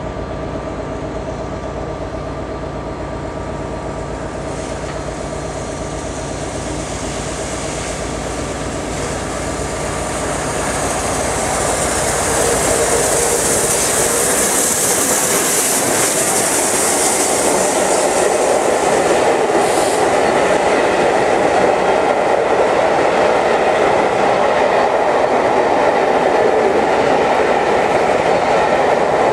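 Steam locomotive 60163 Tornado, a Peppercorn A1 Pacific, approaching at speed and growing louder until it passes close by about halfway through, with a high hiss at its loudest. Then the rumble and clickety-clack of its coaches running past.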